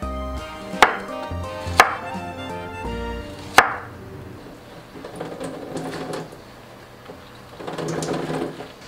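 Chef's knife chopping through a Korean zucchini onto a wooden cutting board: three sharp knocks in the first four seconds, over background music. Near the end, water splatters into a stainless steel sink as it is wrung from a cloth.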